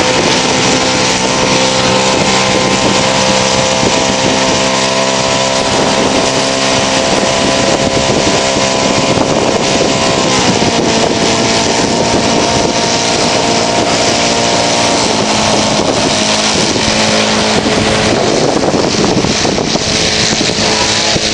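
Engine of a radio-controlled flying lawnmower model running steadily, its pitch dropping slightly about ten seconds in and wavering near the end.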